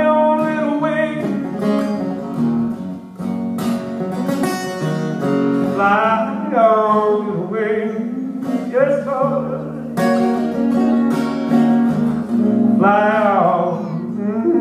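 Acoustic guitar strummed, with a singing voice holding and sliding between notes without words.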